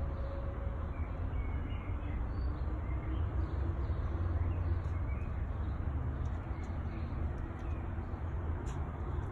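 Outdoor background: a steady low rumble with a few faint, short bird calls scattered through it.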